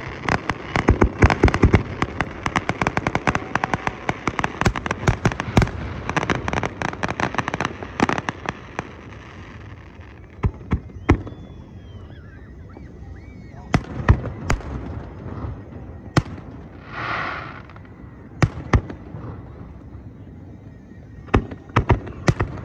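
Aerial fireworks going off: fast, dense crackling and popping for about the first ten seconds, then sparser single bangs of shells bursting, with a short hissing swell about two-thirds of the way in.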